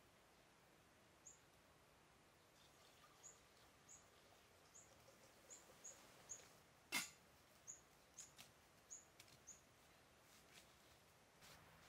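Faint, high, short chirps of a small bird, single notes repeated irregularly about once or twice a second. One sharp click about seven seconds in.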